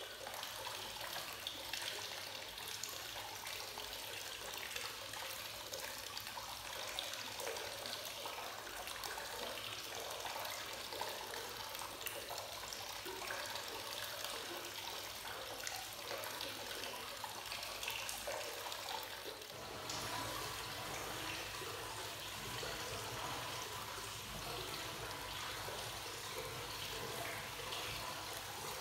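Hot spring water spilling steadily over a notch in the rim of a wooden bathtub and splashing onto the tiled floor, the constant overflow of a free-flowing (kakenagashi) bath. About twenty seconds in, the splashing turns fuller and lower, with water running from a stone inlet spout into the bath.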